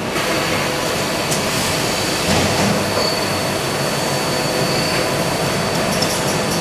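CNC lathe running, its turret tool turning a long shaft under coolant spray: a steady mechanical noise with a thin high whine over it.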